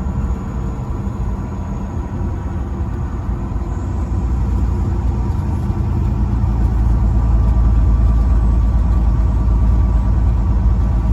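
Steady low rumble of engine and road noise from a vehicle at highway speed, growing louder over the middle of the stretch and then holding.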